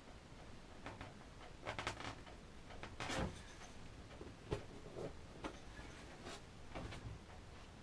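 Faint, scattered taps, scrapes and rustles of a clear plastic template being shifted on a surfboard and a pencil marking through it, the loudest taps about three and four and a half seconds in.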